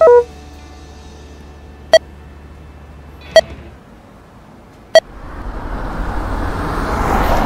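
A short electronic beep at the start, then three sharp, ringing clicks about a second and a half apart, then a rushing noise that builds up over the last two seconds.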